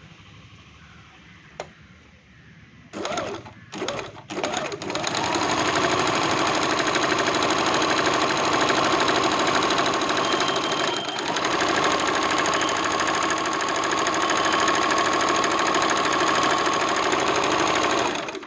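Sewing machine stitching a buttonhole with its buttonhole presser foot: a click, three short starts, then steady running for about thirteen seconds that stops suddenly near the end.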